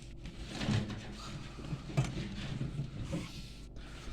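A few light knocks and clicks of handling over a steady low background hum.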